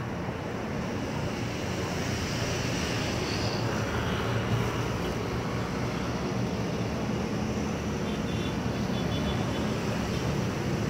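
Steady low rumble of distant engine noise, swelling slightly in the first few seconds.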